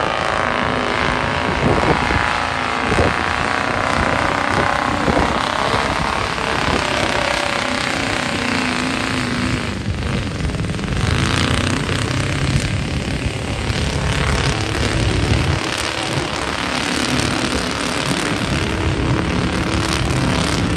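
Heavy off-road truck engines running under load as the trucks churn through deep mud, a continuous loud engine drone whose pitch shifts up and down.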